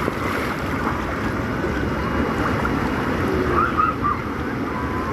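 Steady rush of moving water from a water-park lazy river, with wind buffeting the microphone and faint distant voices.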